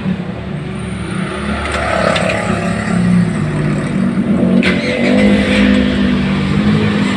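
Hyundai Starex VGT's 2.5-litre turbodiesel engine idling steadily, with one sharp click about two-thirds of the way through.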